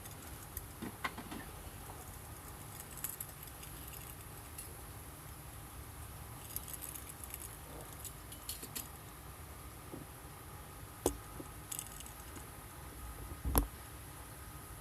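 Scattered light clinks, ticks and rustles of small hard objects being handled, with two sharper knocks, the louder one near the end.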